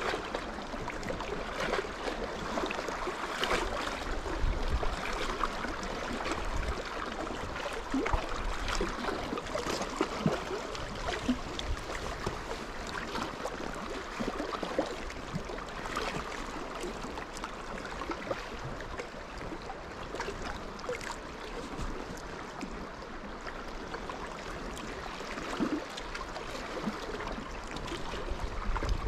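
Choppy lake water lapping and splashing at the shoreline, with occasional low rumbles of wind on the microphone.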